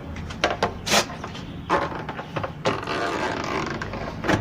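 Knocks and clicks, then a longer stretch of rubbing and scraping from a little past halfway, as the rubber door gasket of a washing machine is handled and worked loose.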